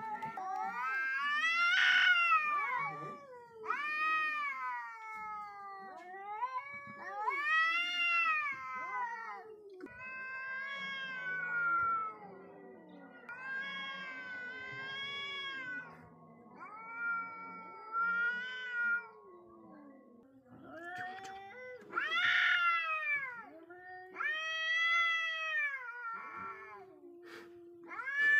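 Two cats caterwauling in a face-off: long, drawn-out yowls that rise and fall in pitch, one after another every couple of seconds, with a lower moaning call running underneath through the middle stretch. This is the threat yowling of two cats squaring up before a fight.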